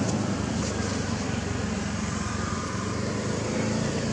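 Steady low background rumble with a faint hum and no distinct events, like distant traffic or machinery.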